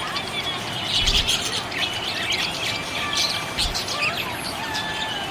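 Budgies chirping, a dense stream of quick overlapping chirps with a few short whistled glides.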